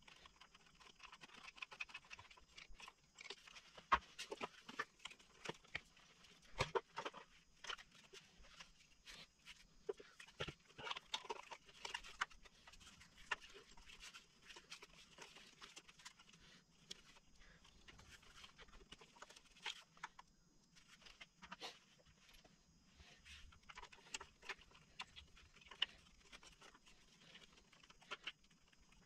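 Faint, irregular clicks and rustles of hands handling a motorcycle's ignition-switch wiring and plastic connectors, with a few sharper clicks now and then.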